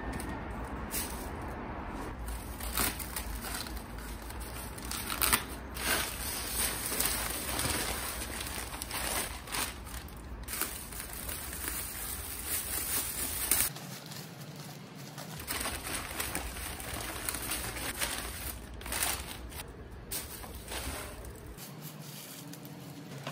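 Newspaper and plastic bags crinkling and rustling as they are handled, with many sharp taps and scrapes, over a steady low rumble.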